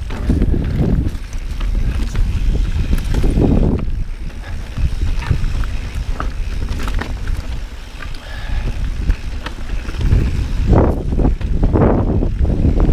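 Santa Cruz Bronson mountain bike being ridden along a dirt trail: wind buffeting the microphone in gusts over a steady rumble of tyres on the ground, with scattered sharp clicks and rattles from rocks and the bike.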